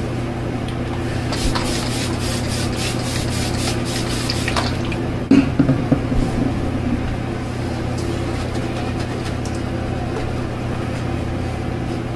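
Shaving lather being worked up with a shaving brush and rubbed over a wet scalp: quick wet swishing strokes, about four a second, then a few soft knocks and scrapes partway through, over a steady low hum.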